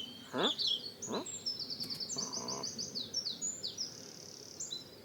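Small birds chirping: quick high descending chirps that run into a fast series mid-way, with two short rising squeaky glides about half a second and a second in.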